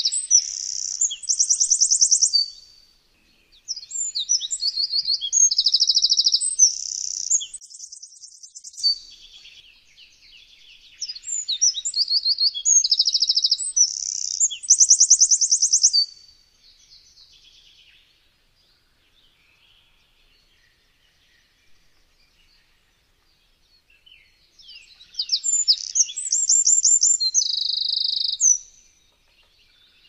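Eurasian wren singing: loud, high-pitched song phrases of rapid trills and chattering notes, each a few seconds long. Three phrases come close together, then a long pause, then a fourth phrase near the end.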